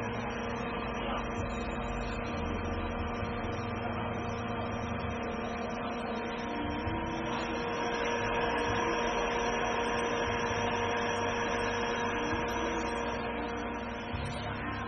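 Steady whirring hum of a hot-air BGA rework station's heater blowers and cooling fans running, with several held tones that swell a little about halfway through.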